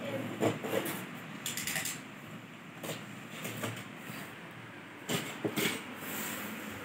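A box cutter scraping and slicing along the packing tape of a flat cardboard box, with short scratchy cuts and light knocks against the cardboard, a louder cluster of strokes about five seconds in.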